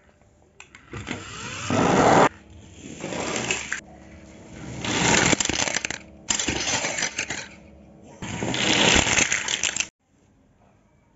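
Plastic toy vehicles being handled and rattled close to the microphone. The noise comes in five loud bursts of rattling and scraping, then stops abruptly near the end.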